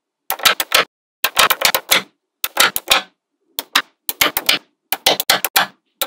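Small magnetic balls clicking and snapping together as a column of them is set onto a magnet-ball slab. The sharp clicks come in quick clusters about once a second.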